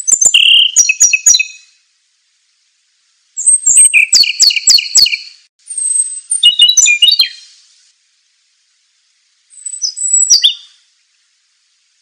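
A small songbird singing in four short bouts of high, quick, whistled and repeated notes, with pauses between the bouts.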